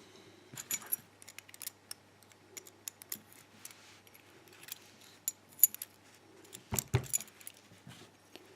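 Small metal key pins from a WILKA padlock's pin-tumbler cylinder clicking and tinkling lightly as they are handled and set down, in scattered faint ticks, with a louder knock about seven seconds in.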